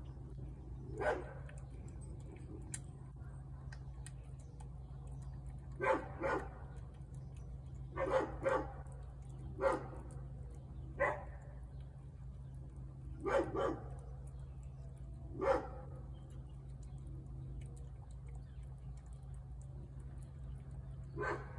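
A dog barking in short single and double barks every few seconds, over a steady low hum.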